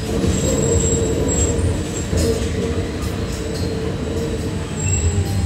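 Electric trolleybus running along a city road, heard from inside the cabin: a steady whine from the electric drive over a constant rumble of tyres and road noise.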